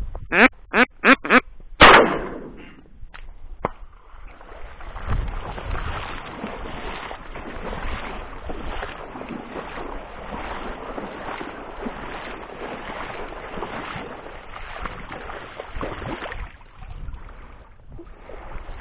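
Duck quacking in a quick series of about five quacks, ended by a louder, longer sound about two seconds in. This is followed by a long stretch of steady splashing and swishing, as someone wades through shallow water and reeds; it fades near the end.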